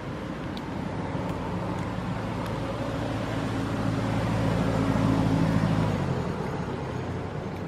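A motor vehicle's engine running as it passes, growing louder to a peak around five seconds in, then dropping away.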